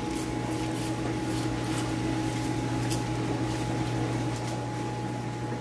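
Steady electrical hum of aquarium equipment, air pumps and filters running on the tank racks, with a few faint clicks and rustles from bags and boxes being handled.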